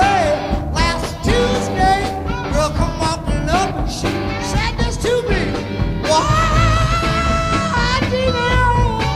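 A live psychedelic rock band playing between vocal lines: a steady bass and drum groove under a lead line of bending, held notes.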